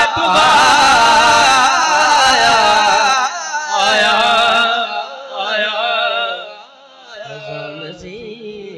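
Male naat reciter singing a long, wavering melismatic line through a PA sound system, loud at first and fading away about six and a half seconds in, after which a softer voice carries on.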